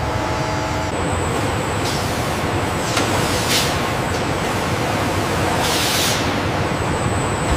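Steady factory machinery noise with a thin high whine, broken by short hisses, the strongest about six seconds in.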